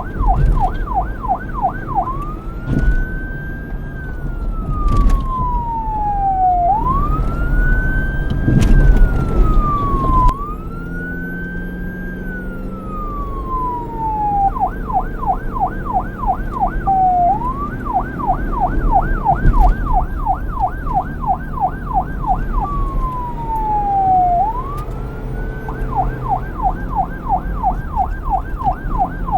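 Police car siren switching back and forth between a fast yelp, about three to four rapid sweeps a second, and a slow wail that rises and then falls over a few seconds. A low rumble runs underneath.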